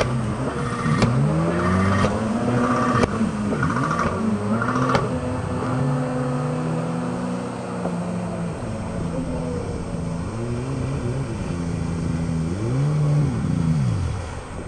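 Jet ski engine revving up and down as the craft runs and turns across the water, its pitch rising and falling in repeated swoops. A few short knocks come in the first five seconds.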